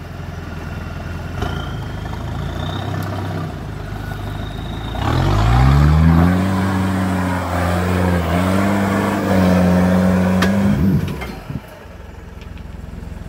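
Off-road 4x4's engine running steadily, then revved hard about five seconds in, its pitch rising and held high for about six seconds with a brief dip, before dropping back near the end.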